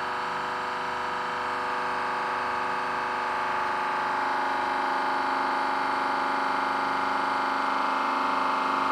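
Hydraulic press pump running with a steady hum-whine made of many even tones, growing slightly louder as the ram loads the block.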